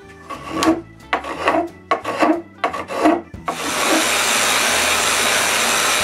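Hand plane taking several quick strokes along the edge of a wooden bookend support, each a short shaving rasp. About three and a half seconds in, an electric orbital sander starts on the maple and runs steadily.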